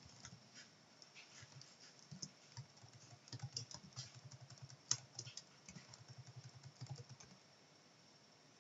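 Faint typing on a computer keyboard: quick, irregular keystrokes that stop near the end.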